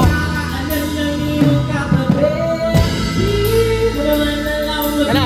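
Live band playing a song through a stage sound system: a voice sings long held notes over steady bass and drums.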